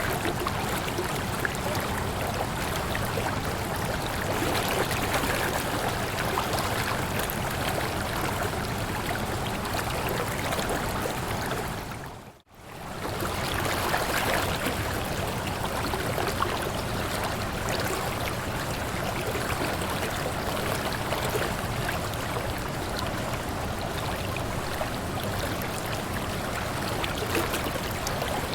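Waterfall water rushing steadily. About twelve seconds in it dips briefly to near silence and comes straight back, an edit join in the recording.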